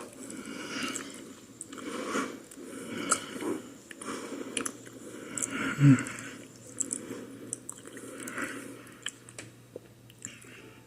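A person biting into and chewing a slice of thin tortilla-crust cheese pizza: repeated wet chewing and mouth clicks. About six seconds in there is a brief low voiced sound.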